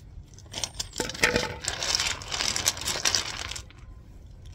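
Gravel stones being tipped out and scattered onto a path: a clatter of small stones knocking together that starts about half a second in and stops after about three seconds.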